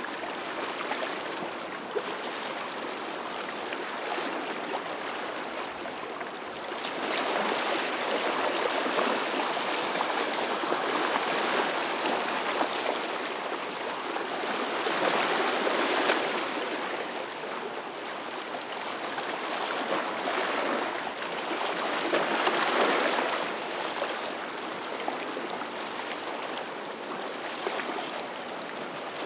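Rushing, splashing water of a boat's wake and waves, swelling and fading every few seconds.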